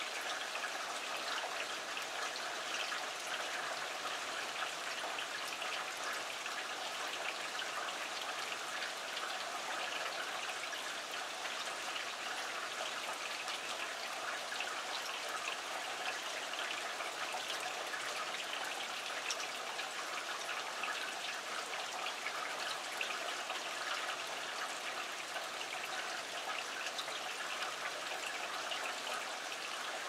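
Steady rain falling, a constant hiss made of many fine drop ticks with no pauses or swells.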